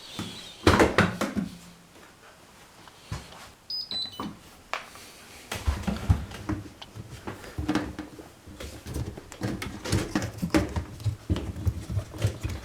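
Irregular clicks, knocks and rattles of hands working on a washing machine's door latch, unscrewing it and pulling it out to check its wiring, with a brief high chirp about four seconds in.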